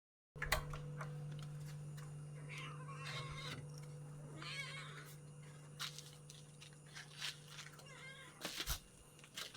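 An animal crying out three times, short wavering calls about three, four and a half and eight seconds in, over a steady electrical hum and a few clicks.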